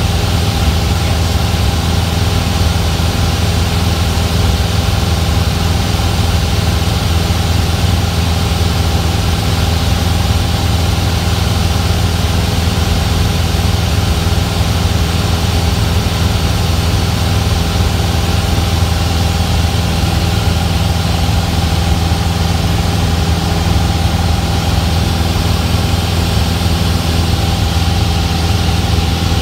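Cessna single-engine piston engine and propeller droning steadily in level cruise, heard from inside the cockpit. The hum holds a constant pitch with no change in power, over an even rush of air.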